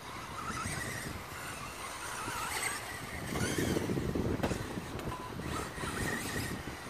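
Sworkz S12-1R radio-controlled buggy running around the track, its faint motor note rising and falling as it accelerates and brakes. A louder low rumble comes in about three seconds in and lasts a little over a second.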